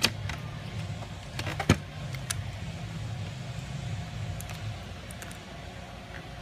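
Sharp clicks and knocks as the end bracket is pushed back onto a slow-rise roller shade's roller tube, the loudest about two seconds in, then a few lighter ticks. A steady low hum runs underneath and fades about two-thirds of the way through.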